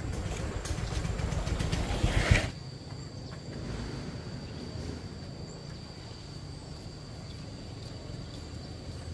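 A motor vehicle engine running, cutting off abruptly about two and a half seconds in, leaving a low steady hum and a thin, steady high-pitched whine.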